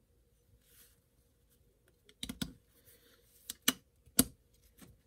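Small metal and plastic parts of a folding knife clicking and tapping together as it is put back together by hand: about six sharp clicks in the second half.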